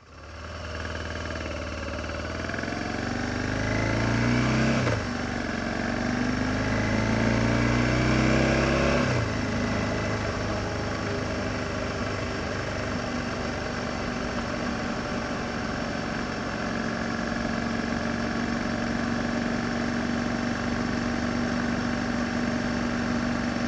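BMW F650 GS motorcycle engine accelerating: its pitch rises, drops sharply about five seconds in as it shifts up, rises again and drops once more about nine seconds in, then holds steady while cruising.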